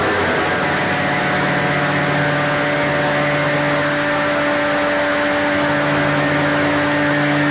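Lo-fi black metal demo recording: a distorted, droning chord held for several seconds over a hiss, changing to new notes at the start and again at the end, with no drum hits.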